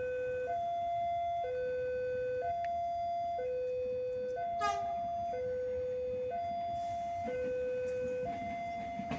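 Two-tone electronic warning signal, alternating evenly between a higher and a lower tone about once a second. A brief chirp breaks in about halfway through.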